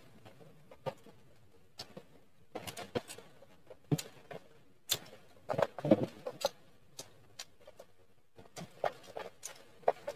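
A child chewing and smacking her lips while eating octopus with fresh herbs: irregular short wet clicks and smacks, loudest in a cluster about six seconds in.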